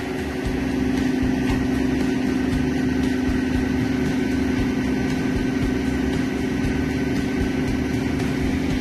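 Tractor engine running steadily at a constant speed, giving an even, droning hum.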